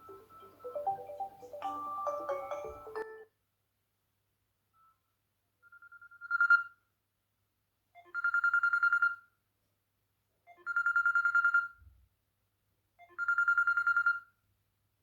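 Smartphone ringtones: a melodic mallet-like tune that cuts off about three seconds in, then, after a short pause, an old-style telephone bell ring, a fast trilling tone that comes four times about every two and a half seconds, the first ring swelling up from quiet.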